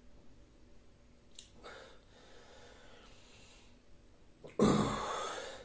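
A man's heavy breathing after downing a shot of vodka: a few quiet breaths, then a sudden loud, sharp breath about four and a half seconds in, as he sniffs a slice of dark bread.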